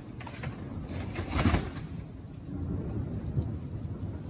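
Heavy rain pouring down with a low steady rumble, and one short louder sound about a second and a half in.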